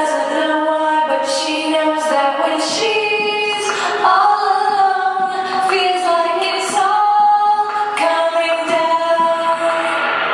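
A female voice singing long held notes over music.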